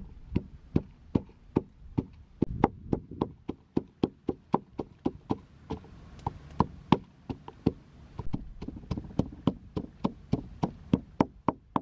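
Wooden pestle pounding red chillies in a wooden mortar: a steady run of sharp knocks, about three a second.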